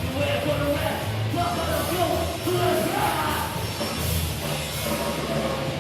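Crossover thrash metal band playing live, loud and continuous.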